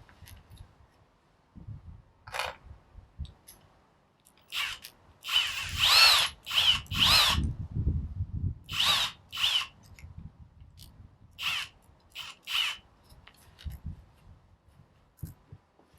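Kobalt 24-volt brushless cordless drill spinning in a series of short trigger bursts, its motor whine rising and falling in pitch, as a bigger bit is fitted.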